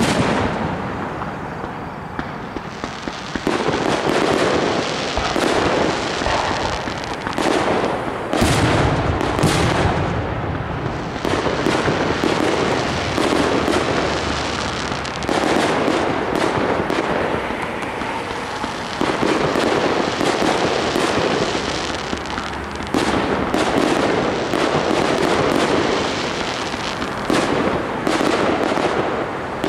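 Fireworks display: aerial shells launching and bursting one after another, many sharp bangs packed into dense stretches of a few seconds each, with a heavy low boom about eight seconds in.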